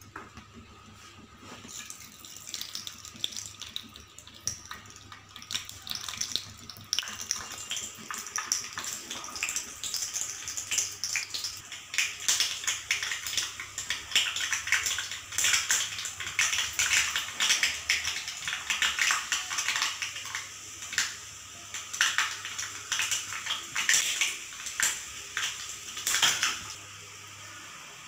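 Cooking oil heating in a small tempering pan on a gas burner. It builds to a sizzle with many sharp crackles and pops from about a quarter of the way in, as mustard seeds, fenugreek and dried red chillies fry for the tempering.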